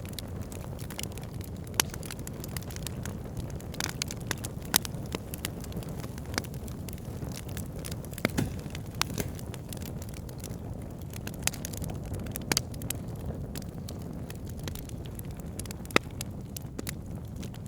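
Wood fire crackling in a fireplace: many sharp pops and snaps, a few louder ones, over a steady low rumble of burning.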